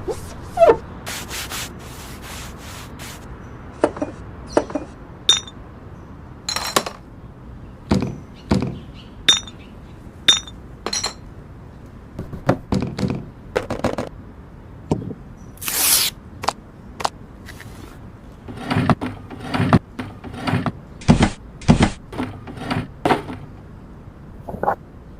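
Fridge restocking: containers and food packages handled and set down, a run of separate taps, knocks and clinks with some rubbing and scraping, and a short hiss partway through.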